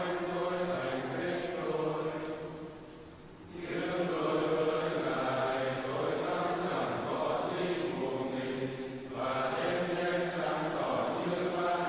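Many voices of a Catholic congregation chanting a Vietnamese prayer text together in unison, in long sustained phrases, with a breath pause about three and a half seconds in and a shorter one about nine seconds in.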